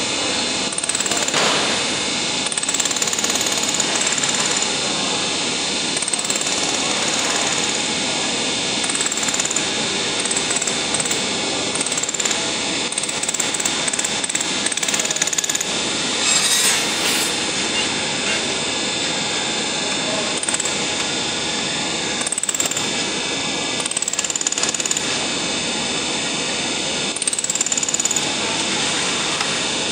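Laser welding machine running with a steady whir, over which come short repeated zaps as the laser tacks galvanized sheet steel; one louder crackle comes a little past halfway.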